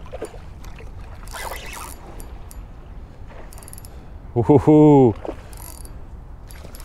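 Spinning fishing reel clicking in short bursts of rapid clicks while a hooked coho salmon is played in. A man's loud 'ooh' comes over it near the middle.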